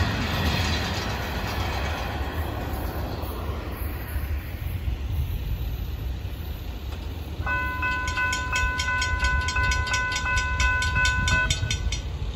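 A freight train's cars rolling away, their wheel-on-rail rumble fading. About seven seconds in, a grade crossing warning bell starts ringing rapidly, about four strikes a second, and stops shortly before the end.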